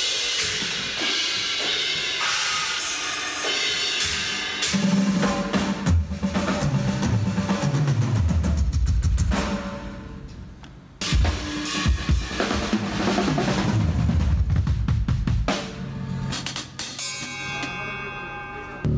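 Acoustic rock drum kit played at a soundcheck: kick, snare and Sabian cymbals with fills. The playing drops away about ten seconds in, then resumes with a few loud single hits.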